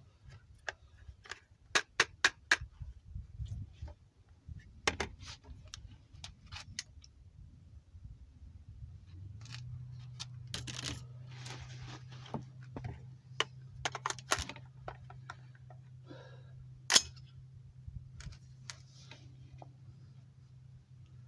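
A scattered run of sharp metallic clicks and clacks from handling a rifle and its ammunition, with one louder sharp clack about 17 seconds in. A steady low hum starts about nine seconds in.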